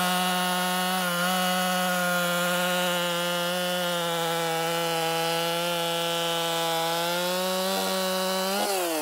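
Two-stroke chainsaw at full throttle cutting up through a log with the top of its bar, running steadily under load. Near the end it revs up briefly, then its pitch falls away.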